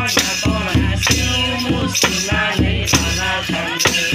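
A song: a voice singing over a steady beat with heavy bass and rattling percussion.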